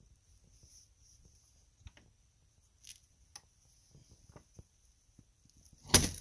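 A hand working a battered door, with scattered small knocks and scrapes, then one loud bang near the end as the door is pushed open.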